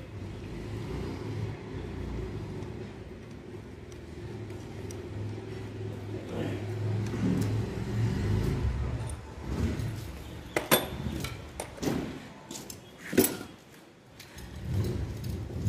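Sharp metallic clinks of a socket and extension bar on the bolts of a Maruti Gypsy engine's cylinder head. Two loud ones come about eleven and thirteen seconds in, over the low steady rumble of a running vehicle engine.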